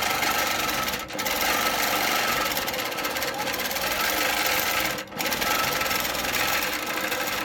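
Innova longarm quilting machine running steadily as it is hand-guided in free-motion stitching through quilt layers. The sound drops out briefly twice, about a second in and about five seconds in.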